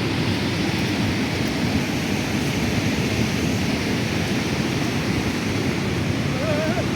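Beas River in flash flood, a steady heavy rush of fast floodwater. Near the end a short wavering whistle-like note sounds faintly over it.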